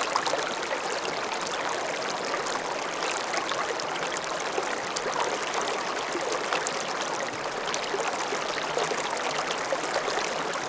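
Small stream flowing over stones, a steady babbling and trickling with many small splashes and bubbles.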